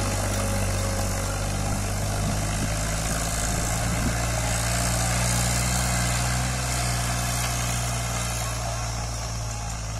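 Powertrac 434 RDX tractor's 35 hp diesel engine running steadily while pulling an 18-disc harrow through soil, not labouring under the load. Its note fades a little near the end as the tractor moves away.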